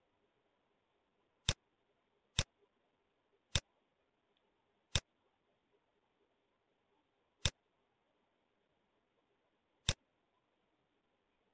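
Computer mouse button clicking six times at irregular intervals of one to two and a half seconds, each click placing the next point of a line while sketching in CAD software.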